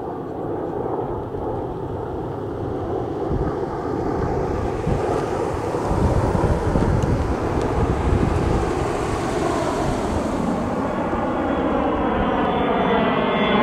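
Military jet aircraft engine noise growing steadily louder as the aircraft approaches: a deep rumbling rush, with a phasing whine sweeping upward in pitch near the end.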